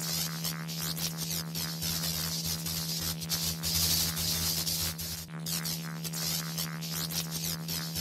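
Glitchy electronic static sound effect: a steady buzzing hum under a crackling hiss, with many short crackles and a brief dropout about five seconds in.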